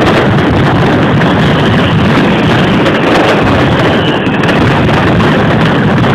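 Mascletà firecrackers going off in a dense, unbroken barrage, the bangs so close together that they merge into one continuous loud noise, while aerial shells burst overhead.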